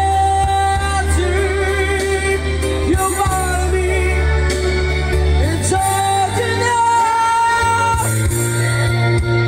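A singer holding long high notes over a backing track with steady bass and accompaniment, the held notes lasting about a second each and sliding between pitches.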